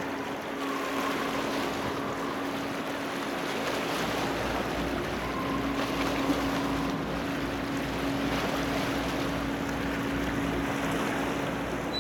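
Car ferry Ise-maru's engines running steadily alongside the pier: a constant low hum under a wash of noise.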